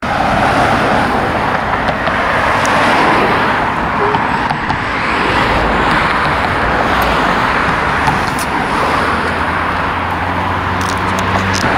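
Steady road traffic noise from cars passing close by on a busy city road, with a low engine hum rising out of it near the end.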